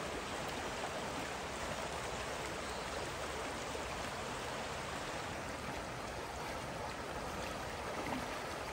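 Creek water flowing steadily around logs and a makeshift board platform, an even rushing with no pauses.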